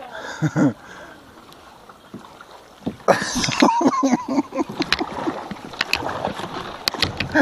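Kayak paddle strokes on slow river water: the blades dipping and splashing, with drips and light knocks. Quieter for a couple of seconds, then busier again from about three seconds in.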